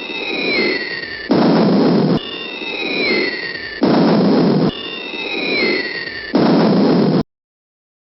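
Falling-bomb whistle sound effect, a descending whistle heard three times, each followed by a short burst of rumbling blast noise that cuts off abruptly. It ends in a sudden silence near the end.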